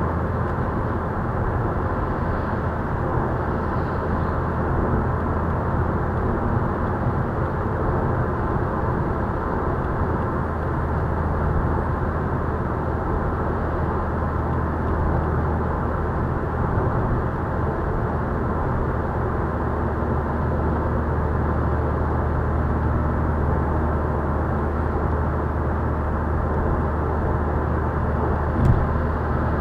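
Steady cabin drone of a Volkswagen Scirocco cruising at motorway speed: tyre and road noise with a constant low engine hum. A single short knock near the end.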